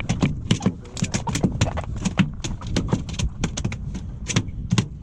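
Rapid, irregular sharp knocks and clicks, several a second, over a steady low rumble.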